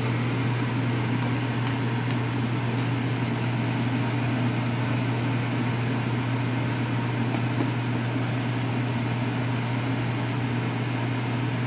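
Steady low hum of a fan motor, with a faint sizzle of rice frying in oil in a pan as it is stirred with a spatula.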